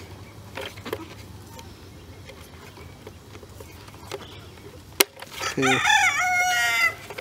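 A rooster crowing once, loud, for about a second and a half near the end. Just before it comes a sharp click as a tab on the plastic fuel pump cage snaps into place.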